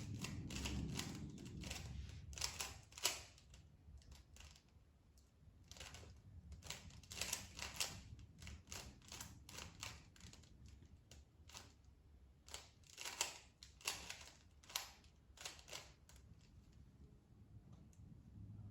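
Plastic 3x3 Rubik's Cube being twisted by hand, its layers clicking and clacking in quick irregular flurries of turns with short pauses between. A low rumble underlies the first couple of seconds.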